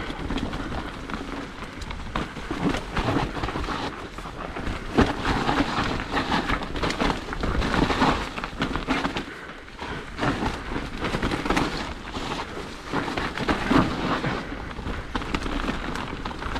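Salsa Rustler full-suspension mountain bike descending a muddy trail: tyres working through mud with constant rattles and knocks from the bike over rough ground, and a steady rumble of wind buffeting the microphone.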